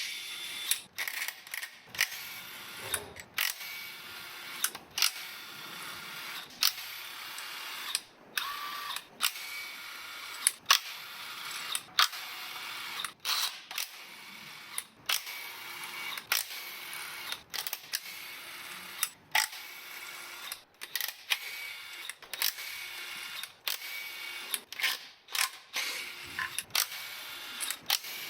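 Irregular metallic clicks, clinks and knocks of hand tools on engine parts during a V6 engine teardown, some of them ringing briefly.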